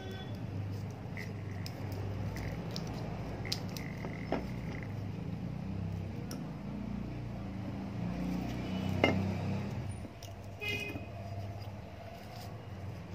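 Sharp clicks and clinks of a dismantled electric iron's metal parts being handled and set down, the loudest a knock about nine seconds in. Behind them a steady low rumble of traffic with a few short high beeps like vehicle horns.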